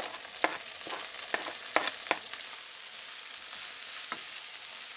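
Breaded chicken breasts and freshly added minced garlic frying in hot oil in a pan, a steady sizzle. Several sharp taps in the first two seconds and one more near the end.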